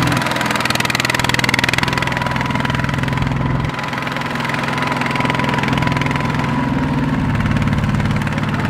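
Single-cylinder diesel engine of a two-wheel walking tractor running steadily. Its note changes abruptly about four seconds in.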